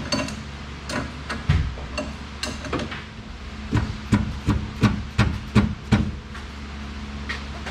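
Hammer tapping on metal parts of the strut assembly: irregular sharp strikes, with a quicker, louder run of about seven blows between about four and six seconds in, over a steady low hum.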